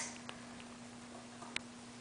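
Faint light clicks and taps of hairless kittens' claws on a chrome stand base, with one sharper click about one and a half seconds in, over a steady hum.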